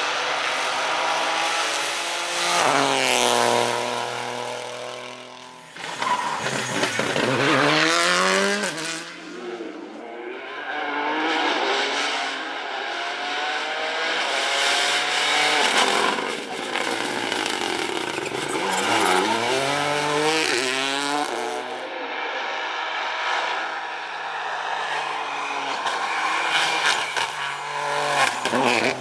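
Rally cars at racing speed, passing one after another. Each engine revs hard, its note climbing and dropping sharply as it shifts gears and rises and falls in loudness with each pass.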